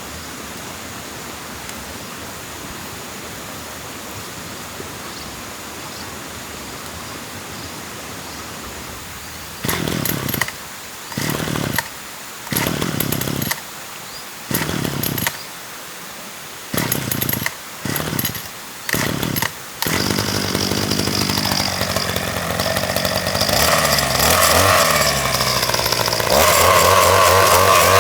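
A steady rushing noise, then, about ten seconds in, a small engine such as a chainsaw's fires in a series of short bursts. From about twenty seconds in it runs continuously, its pitch rising as it is revved.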